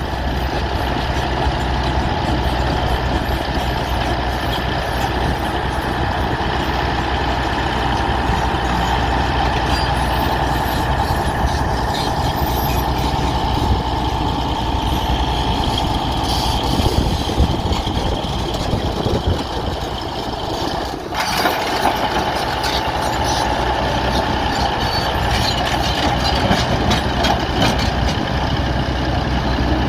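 Bulldozer's diesel engine running steadily under work, with a brief dip in level about two-thirds of the way through.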